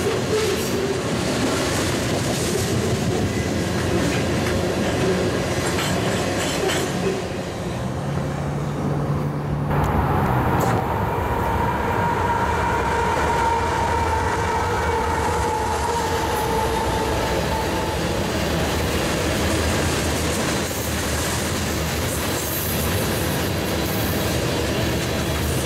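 Freight train of tank cars rolling past, a continuous rumble and rattle of steel wheels on rail. About ten seconds in, a long steady high whine joins in for several seconds, then fades.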